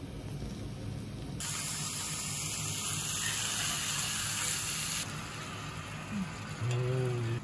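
Thin-sliced beef sizzling as it is laid into a hot sukiyaki pan greased with beef fat, starting about a second and a half in and cutting off suddenly some three and a half seconds later. Near the end, a brief low hum.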